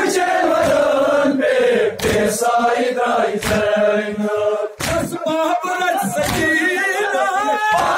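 A crowd of men chanting a nowha, a Shia mourning lament, together, with sharp slaps of matam (hands striking chests) cutting in now and then.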